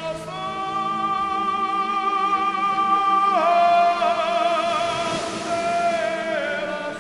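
Background music: a slow melody of long held notes with a slight vibrato, stepping down in pitch about halfway through and again near the end.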